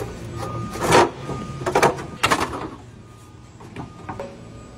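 Heavy metal scraping and clanking, three rough strokes in quick succession over about two seconds, as the steel drive-end bracket of a large electric motor is worked loose against the motor frame.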